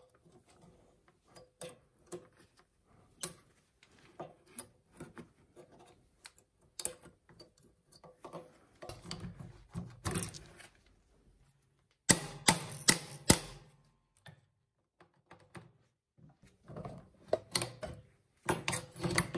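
Small metal parts and hand tools clicking and clinking as worn, broken clutch cables are worked loose. Scattered taps throughout, with a cluster of louder clatter about twelve seconds in and again near the end.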